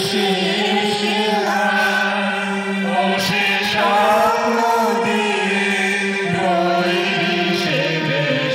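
A mixed group of men and women singing a song together in unison into microphones, the voices holding long notes over a steady low tone.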